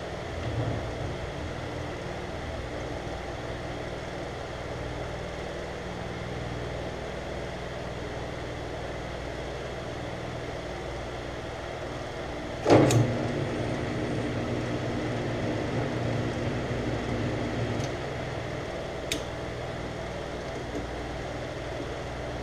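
Metal lathe running steadily, its motor and drive giving a constant hum, while a 45-degree tool chamfers the outside edge of a Delrin bushing. A single sharp knock about halfway through, and two light clicks a few seconds later.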